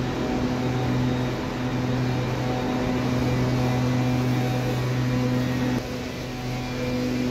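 Steady low mechanical hum, like an engine running, that drops off suddenly about six seconds in and carries on quieter.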